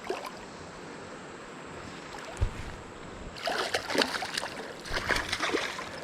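Steady rush of river water. From about three seconds in come a couple of seconds of splashing at the surface as a hooked smallmouth bass is fought in close.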